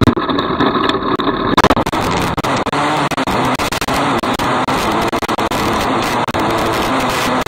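A 270 micro sprint's engine running hard at racing speed, heard on board the car. The engine note rises and falls as the car goes around the dirt track, over a constant rush of noise.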